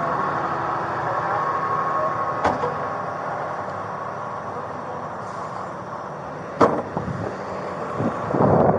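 A vehicle engine idling steadily, with a faint click about two and a half seconds in and a sharp knock about six and a half seconds in.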